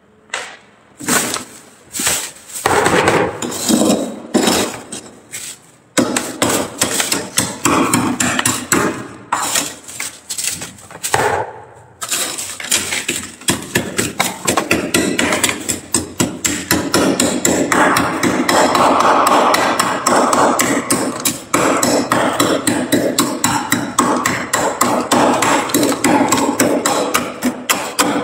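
Metal spoon scraping and chipping thick frost build-up inside a freezer, stroke after stroke. The strokes are spaced at first, then a little before halfway through they turn into a fast, nearly unbroken run of several strokes a second.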